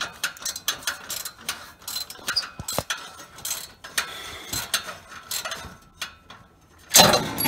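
Socket ratchet clicking in quick strokes as a loosened exhaust-header nut is spun off, with a louder rattle about seven seconds in.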